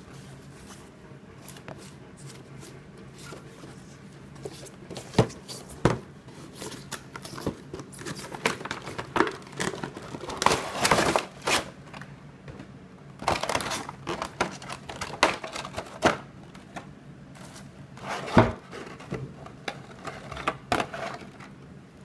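Clear plastic blister packaging being handled: irregular crinkling, rustling and sharp plastic clicks as the tray is pulled from the box and the figure is freed from its wrapping, loudest in a few clusters near the middle and again near the end.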